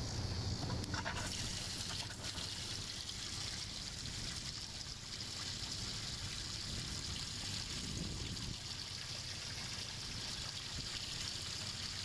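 Livewell pump spraying a fan of water into a boat's livewell, a steady splashing trickle that starts about a second in as the livewell fills.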